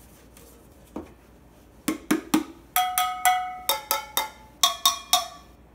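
Homemade tin-can drums tapped with sticks: a single tap, then three duller low taps, then a quick run of about ten sharp metallic strikes that each ring with a clear pitch, the pitch shifting between cans.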